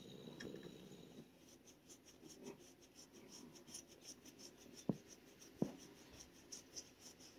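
Thick leather work glove rubbing against a cat's fur in quick, faint scratchy strokes, about three or four a second. Two sharp clicks a little under a second apart come past the middle and are the loudest sounds.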